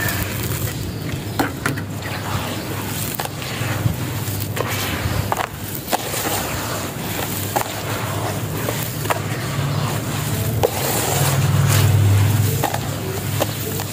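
Wet, gritty sand being squeezed and crumbled by hand in a basin of water: a continuous crunching and scraping with scattered sharp clicks of grit, heaviest about eleven seconds in as clumps are broken and dropped back onto the pile.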